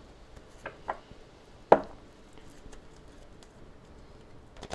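A few short, sharp taps or clicks, the loudest a little under two seconds in, over a quiet background.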